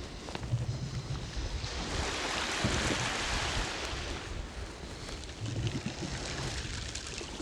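A small wave on a calm sea washing up the shore, a hiss that swells about two seconds in and fades away, with wind rumbling on the microphone.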